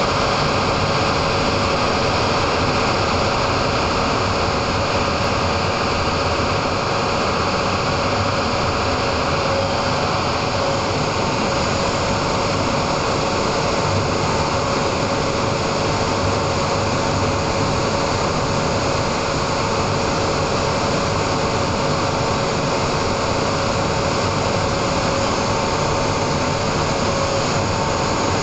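1500 kW diesel generator set running, a steady loud engine drone with a faint steady whine over it.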